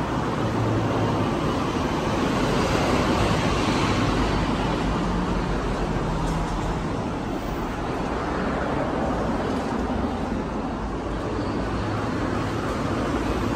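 Steady street noise with road traffic running by.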